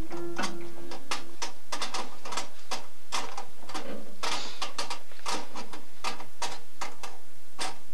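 Kitchen sink clanking and rattling in irregular metallic knocks, sounding like it's about to fall apart: faulty plumbing.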